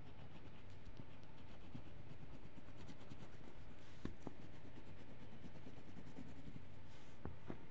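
Yellow crayon scratching across paper in quick back-and-forth strokes while colouring in a drawing, with a few light clicks about four seconds in and near the end.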